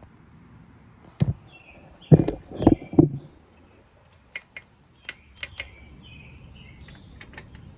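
Knocks and clinks of tools and metal parts being handled during rear-wheel refitting on a motorcycle: a knock about a second in, a cluster of heavier knocks two to three seconds in, then several lighter clicks. Faint bird chirps near the end.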